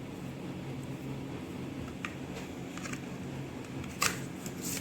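Small clicks and taps of a 2.5-inch SSD being handled and set into a laptop's drive bracket, the loudest sharp click about four seconds in, over a steady low hum.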